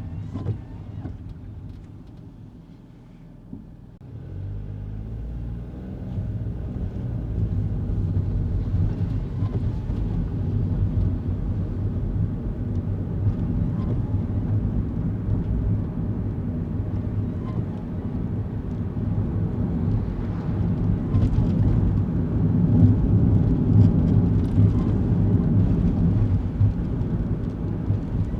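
Kei car heard from inside the cabin: quieter for a few seconds, then the engine note climbs as the car gathers speed and settles into a steady low drone of engine and road noise.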